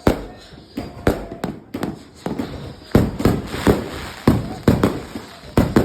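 Fireworks going off in a rapid, irregular string of sharp bangs, several each second, each one dying away before the next, and coming thicker in the second half.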